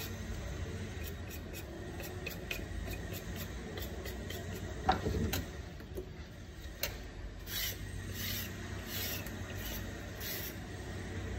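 Vegetable peeler scraping down a raw carrot in repeated short strokes, shaving strips onto a plastic cutting board, with one sharper knock about five seconds in.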